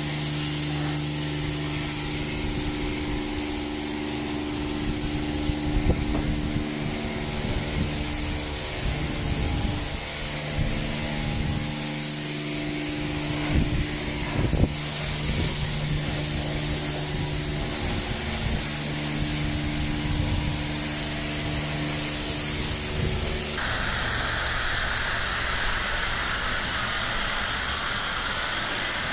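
Pressure-washer spray hissing steadily over a constant machine hum, with a few knocks. About 24 seconds in, the sound cuts abruptly to a different stretch of steady engine noise.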